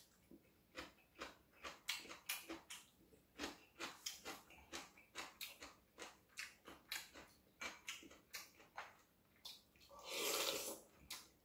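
Close-up eating sounds: chewing and small wet mouth clicks, several a second. About ten seconds in there is a louder slurp lasting about a second as soup is sucked from a bowl of seaweed soup (miyeokguk).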